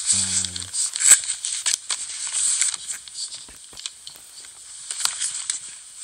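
Small cardboard box handled and picked up off carpet: scraping, rustling and clicking, the sharpest click about a second in, over a heavy steady hiss. A short bit of voice opens it.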